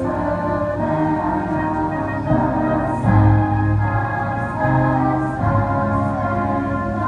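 Children's chorus singing long held notes over an amplified accompaniment with a steady low bass line.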